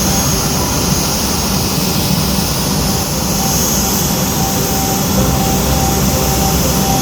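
Jet engines of a Boeing 787-9 Dreamliner running, a steady, loud jet noise that holds even throughout.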